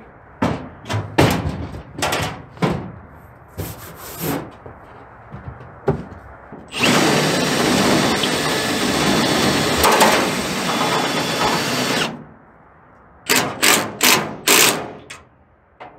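Cordless impact driver driving in the mounting bolts of a truck-bed toolbox. It runs in short trigger bursts for the first six seconds, in one long run of about five seconds in the middle, then in several quick bursts near the end.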